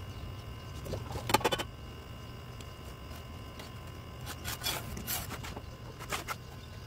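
Metal trowel scraping wet concrete along the edge of a board under a concrete pot mould, in short strokes: a quick group about a second in, then several more in the second half.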